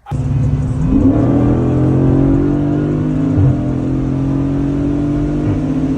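Car engine pulling hard at high revs, its note climbing about a second in and then holding steady, with a short break in the note about three and a half seconds in.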